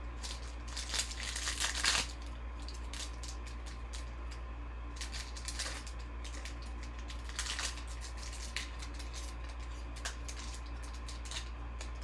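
Trading cards being handled and flipped, with plastic crinkling for the first couple of seconds and scattered soft rustles and card flicks after, over a steady low hum.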